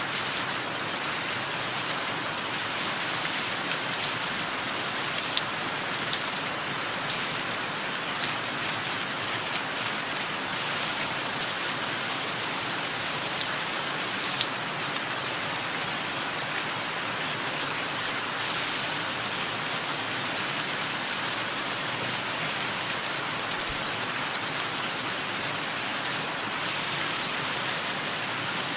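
Steady rain falling, with a small bird's short, high chirps every few seconds, each falling in pitch and often coming two or three together.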